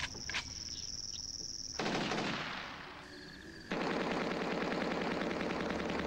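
A steady high insect trill cut off by automatic gunfire. One burst breaks in about two seconds in and dies away, and a longer, rapid burst starts nearly four seconds in.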